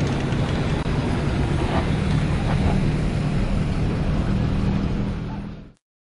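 A boat's motor running steadily under way, with wind rushing over the microphone. It fades out quickly near the end.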